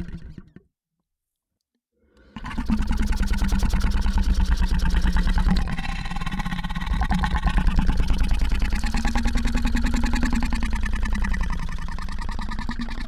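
Monster sound effect: the end of one creature call fades out. After about two seconds of silence, a long, rattling creature growl begins, its low pitch rising and falling.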